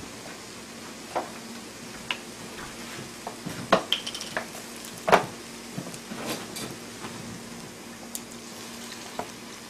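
Kimchi and pork sizzling steadily in a frying pan over a portable gas burner, with scattered knocks and clicks of handling. Near the end, water starts pouring from a plastic bottle into the hot pan.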